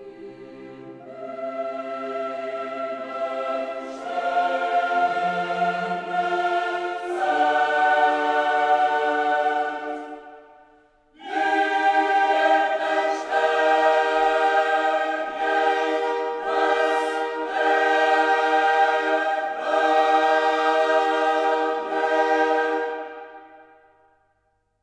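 Choral music: a choir singing sustained chords in long phrases, breaking off briefly about ten seconds in, then coming back louder and fading out near the end.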